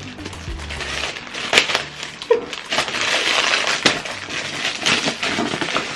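Packaging wrap crinkling and rustling as a handbag is unwrapped, with a few sharp crackles, over background music.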